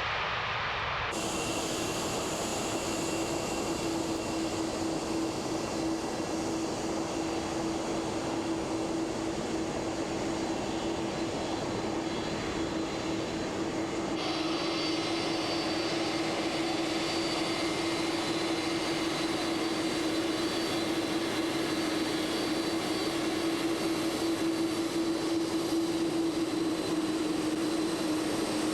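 Boeing 767-300ER jet engines running steadily: an even drone with a constant low hum. The sound changes abruptly about a second in and again about halfway through.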